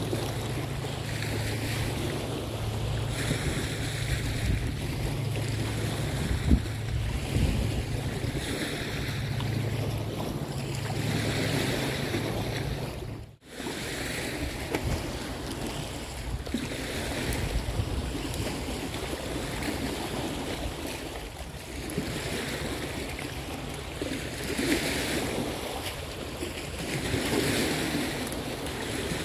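Wind blowing and buffeting the microphone, with river water washing in steady swells; the sound drops out abruptly for a moment about 13 seconds in.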